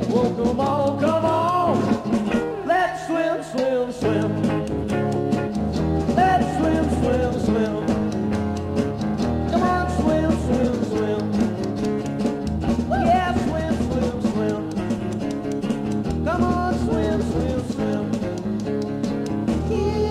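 Early-1960s rock and roll demo recording by a small band with electric guitar, played back slowed down and heavily equalized.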